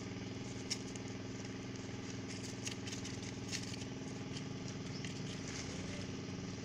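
An engine idling steadily, with a few short clicks about a second in and around three seconds in.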